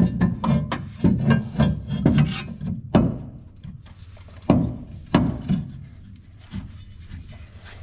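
Metal knocks and scraping from the rear spring plate of a VW Type 2's torsion-bar rear suspension being worked loose by hand. A quick run of clanks fills the first three seconds, then a few single knocks follow, and it dies down near the end.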